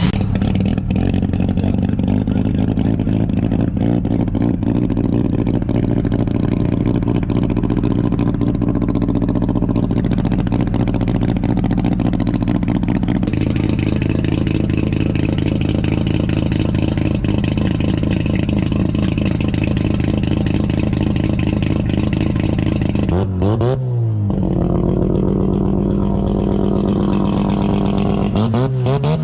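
Mazda 12A two-rotor rotary engine idling steadily. The sound shifts abruptly about 13 seconds in. It is blipped about 23 seconds in and again at the very end, the revs rising and falling quickly each time.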